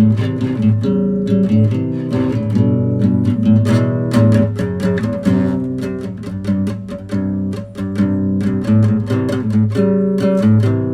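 Background music of acoustic guitar, strummed and plucked chords at a steady pace.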